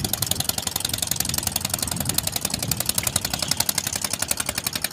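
Boat diesel engine running steadily with a rapid, even knock.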